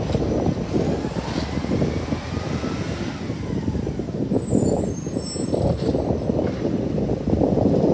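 A heavy truck running and moving past, with wind buffeting the microphone.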